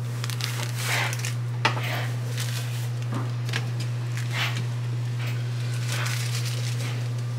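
Plastic bag of dry seafood-boil seasoning crinkling and rustling in the hand, with a sharp click just under two seconds in and light clatters as the pot lid is lifted off a pot of boiling water. A steady low hum runs underneath.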